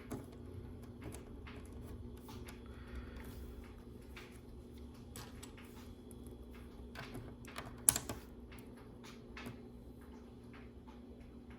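Small plastic LEGO pieces clicking and tapping as they are picked up and pressed onto the build: scattered light clicks, with one sharper click about eight seconds in.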